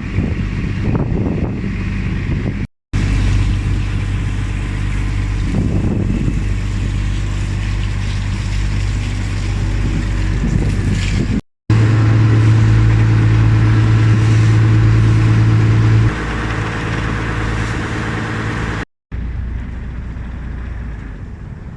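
Fishing boat engine running steadily with a low, even hum, louder for a few seconds in the middle, broken by three brief drop-outs.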